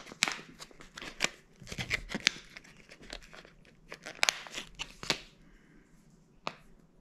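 A plastic packet crinkling and tearing as it is opened by hand and a silicone ring is pulled out, with quick sharp crackles that stop about five seconds in. A single click follows near the end.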